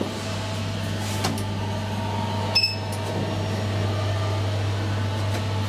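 Steady low electrical hum from the new elevator installation, with a short high electronic beep about two and a half seconds in.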